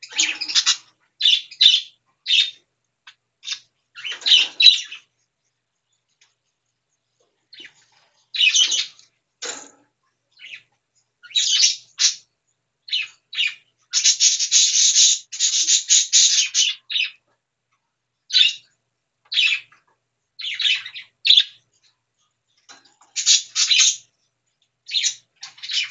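Baby pet birds giving short, high-pitched squawks and chirps in scattered bursts, with a longer unbroken run of harsh calls about halfway through.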